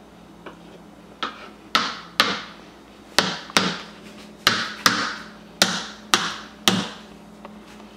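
Kitchen knife chopping through tofu and striking a plastic cutting board: about a dozen sharp knocks at an uneven pace, the loudest in the middle of the stretch.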